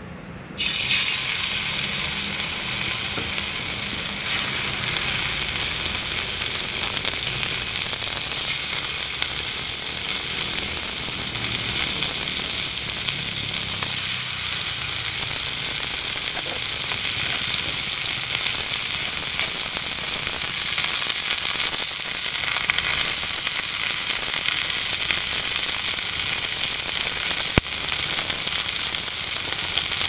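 Food frying in a pan, a dense steady sizzle that starts abruptly just under a second in.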